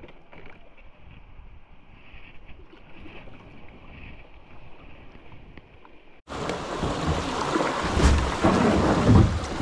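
Creek water rushing around kayaks running rapids: at first faint and muffled, then about six seconds in it turns suddenly loud and full, with wind buffeting the microphone.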